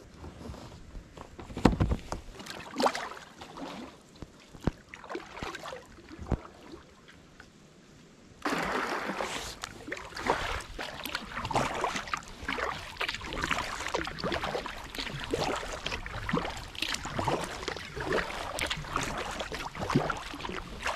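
A kayak being boarded and then paddled: first scattered knocks and bumps on the hull as a person settles in at the bank, then, after an abrupt change about a third of the way in, a double-bladed paddle splashing through the water with each stroke.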